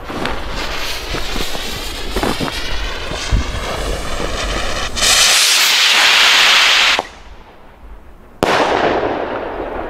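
Green Hawk firework rocket: the fuse fizzes for several seconds, then the rocket launches with a loud rushing hiss for about two seconds. About eight seconds in there is a sudden bang as it bursts, followed by a fading hiss.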